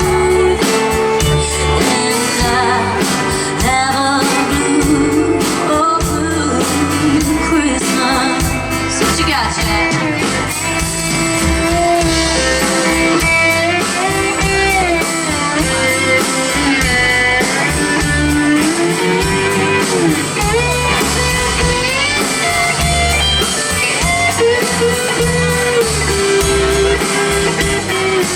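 Live band music played in a real country style, with guitar to the fore and singing.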